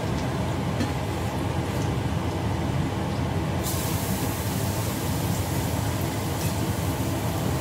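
Minced garlic hits hot oil in a stainless steel wok and starts sizzling about halfway through: a sudden loud hiss that keeps going. Underneath is a steady low rumble from the stove, with a few faint clicks from the ladle before the garlic goes in.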